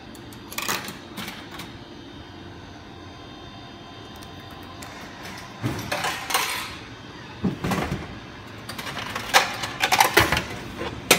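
Drink vending machine being used: several short clatters and clicks as a juice carton is dispensed into the pickup tray and the tray's plastic flap is pushed open, ending with a sharp click near the end. A steady background hum runs underneath.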